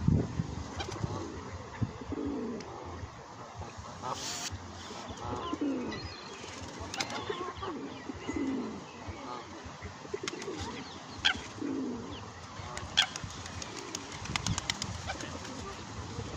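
Birds calling in short, low notes that fall in pitch, one every second or two, with scattered sharp clicks between them.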